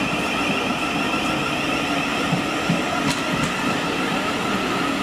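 Train running on the rails, a steady rumble with a high whine held throughout, and a couple of sharp wheel clicks about three seconds in.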